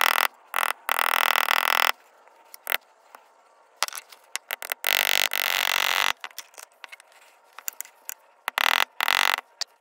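Leather tooling: irregular bursts of rustling and scraping as hands and sleeve move close over the work, with a few sharp taps of a mallet on a steel stamping tool.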